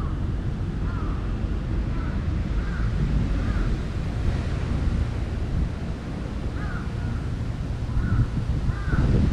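Wind rumbling on the microphone, with short bird calls sounding at irregular intervals in the background. The calls come more often near the end.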